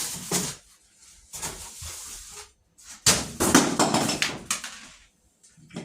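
Unboxing noise: packaging and plastic parts being handled and pulled from the box, rustling and knocking in irregular bursts. There is a short burst just after the start, a longer scrape around a second and a half in, and the loudest rustle from about three seconds to nearly five.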